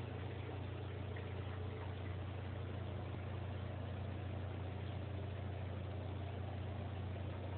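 Steady low hum with an even hiss behind it, typical of an aquarium pump motor running.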